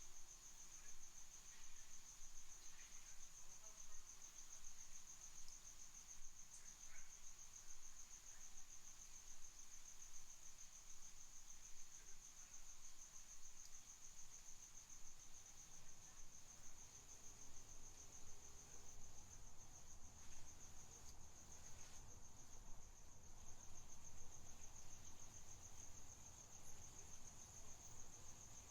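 Crickets chirring in a continuous, fast, high-pitched trill that holds steady, quiet, over a faint low rumble that grows a little louder about halfway through.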